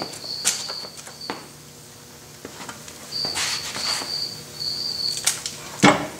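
Metal clunks and knocks as the cast-iron headstock of a Logan lathe is lifted off the bed's ways and handled, with one loud clunk near the end. A high, intermittent chirping runs in the background.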